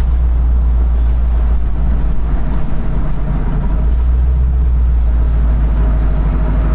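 Inside the cab of a 1980 Chevrolet K5 Blazer on the move: a steady low engine and road drone.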